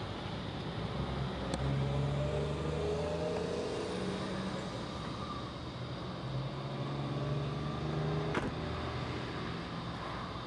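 Mid-size pickup truck idling steadily, with a car door slamming shut about eight seconds in.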